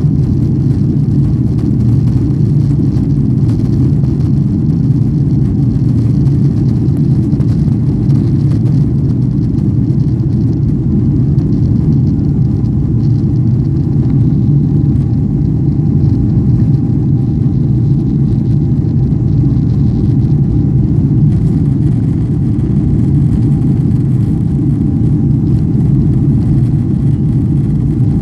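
Cabin noise inside a Boeing 777-300ER climbing after takeoff: a loud, steady, deep rumble from its GE90-115B engines and the airflow. A faint steady whine comes in about halfway through.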